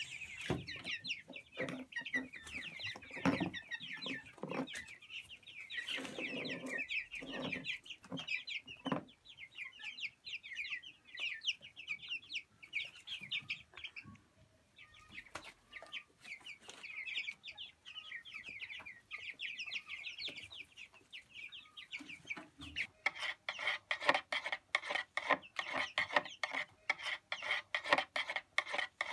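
A flock of young white broiler chickens cheeping, many short high chirps overlapping steadily. In the last several seconds a rapid scraping and rattling joins in as a hand stirs water in a plastic drinker.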